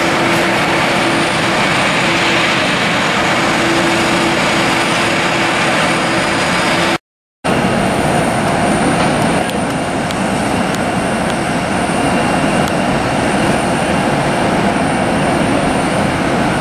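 Boeing 787 jet engines at taxi power: a steady rushing noise with a faint steady hum. The sound drops out for about half a second some seven seconds in, then a second taxiing 787's engines carry on.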